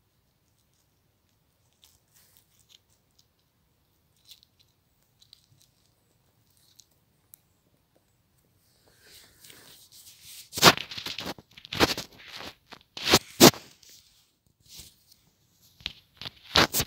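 Gravel crunching close to the microphone in a series of loud, short bursts from about ten seconds in, after a stretch of only faint scattered ticks.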